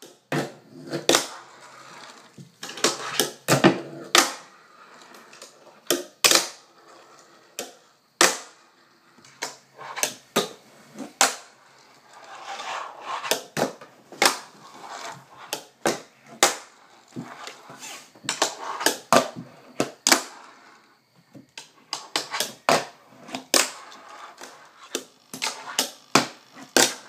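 Fingerboard (miniature finger skateboard) clacking on a wooden tabletop and a metal box ledge: sharp, irregular clicks as the board pops, flips and lands, with short stretches of small wheels rolling between them.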